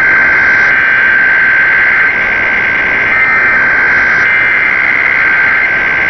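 Emergency Alert System SAME header data tones, a harsh, steady digital screech with a high tone running through it, heard through heavy AM radio static.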